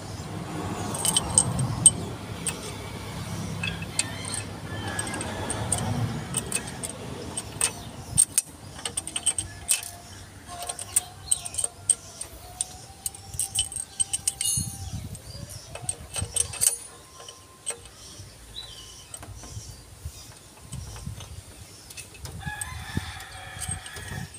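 Light metallic clicks and clinks of hand tools and small parts being handled over an open engine cylinder head.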